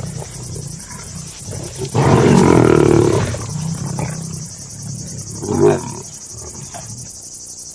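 Lioness vocalising: one loud call lasting over a second about two seconds in, and a shorter one near six seconds.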